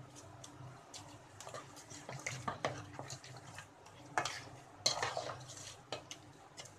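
A wooden spoon stirring chunks of raw mutton with yogurt and spices in a metal degchi, with irregular knocks and scrapes against the pot; the loudest knocks come a little after four and five seconds in.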